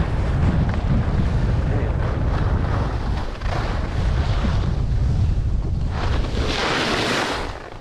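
Wind buffeting the microphone while skiing downhill, with skis hissing and scraping over firm, chopped-up groomed snow. The scrape swells in several turns, loudest for a second or so near the end, then quietens.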